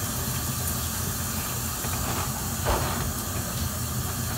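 Steady hiss with a low rumble underneath, and one short, soft thump about two and a half seconds in.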